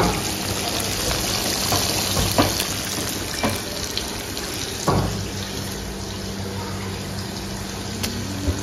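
Masala-coated fish shallow-frying in hot oil in a pan: a steady, bright sizzle, with several sharp pops of spattering oil.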